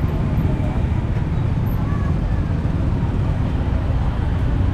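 Street traffic of motorbikes and tuk-tuks passing close by: a steady low rumble with no distinct events.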